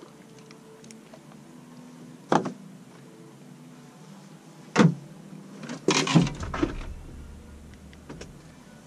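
Hard knocks on a fishing boat as a rod is handled at the rod holders: single knocks about two and a half and five seconds in, then a quick cluster of knocks around six seconds.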